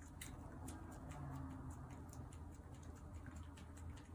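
Faint, irregular small clicks and crackles of a plastic tube-shaped cat-treat pouch being handled and torn open, over a low steady hum.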